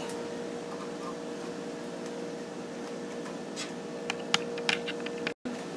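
A steady mechanical hum, with a few short sharp metallic clicks in the second half as an opened can of chicken and its peeled-off metal lid are handled.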